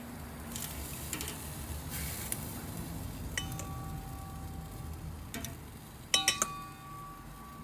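Metal tongs clinking against the stainless-steel grate of a kamado charcoal grill as fruit is placed and moved. There are a few single ringing clinks and a quick cluster of sharper clinks about six seconds in.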